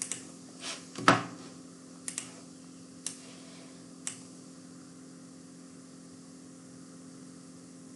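Computer mouse clicks: several single clicks and one quick double click in the first four seconds, over a steady low hum.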